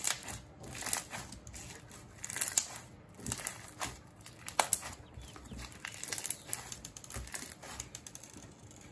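Clear slime packed with fishbowl beads being squished and pressed by hand on a table, giving irregular crunchy crackling with louder bursts every second or so.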